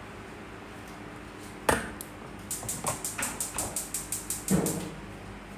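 Gas stove spark igniter clicking rapidly, about six or seven clicks a second, as a burner knob is turned. A sharp knock comes about two seconds in and another thump near the end.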